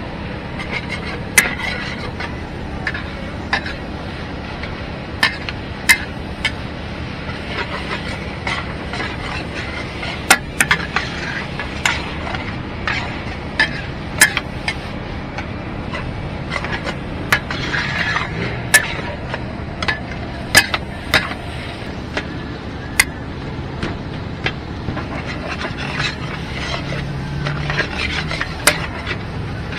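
Metal ladle and spatula scraping and clanking against a large wok as rice vermicelli is stir-fried, with sharp irregular clanks every second or so over a steady sizzle.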